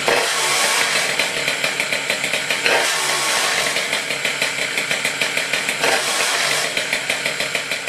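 MBK 51 moped's single-cylinder two-stroke engine, just kick-started, running through an expansion exhaust with a rapid, even firing beat and brief rises in revs about three and six seconds in.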